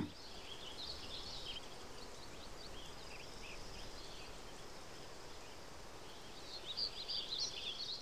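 Faint outdoor nature ambience of small birds chirping, busier at the start and again near the end, over a steady low background hiss.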